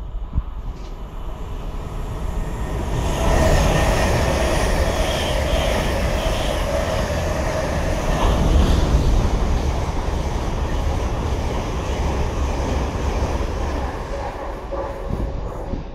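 A train running through the station: a broad rail rumble that builds about three seconds in and then carries on steadily, with a faint steady whine running through it.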